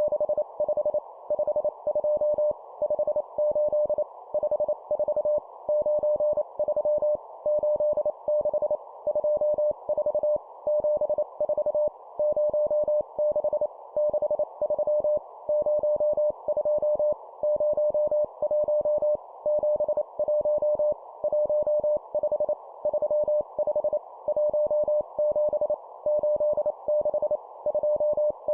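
Morse code sent at 25 words per minute: a steady tone of about 600 Hz keyed on and off in short and long elements, over a narrow band of hiss.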